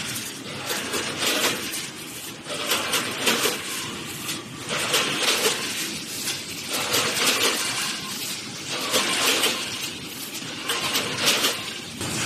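Automatic capsule packaging machine running in a repeating cycle, with a burst of noise about every two seconds over a steady machine sound.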